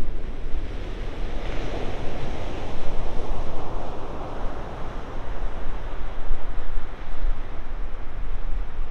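Ocean surf breaking, a steady noisy wash of waves with wind rumbling on the microphone; a louder wave crash swells about a second and a half in and fades over the next few seconds.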